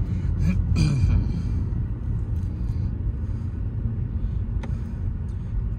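Manual car's engine and road noise heard from inside the cabin: a steady low rumble as the car rolls off the throttle toward a stop, easing slightly after the first second or two.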